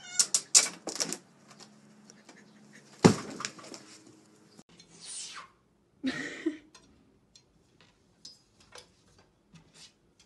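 Cats climbing and scrabbling: a quick run of sharp clicks and knocks, one heavy thump about three seconds in, then scattered light taps of a cat clambering on a metal clothes drying rack.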